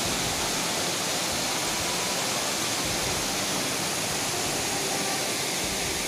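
Small waterfall cascading over rocks into a stream: a steady rush of water.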